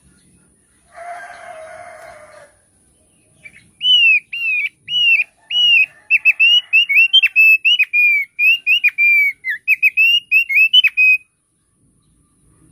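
A thick-billed white-eye (opior paruh tebal) singing: a fast run of loud, down-slurred whistled notes lasting about seven seconds. A short rough call comes about a second in, before the song.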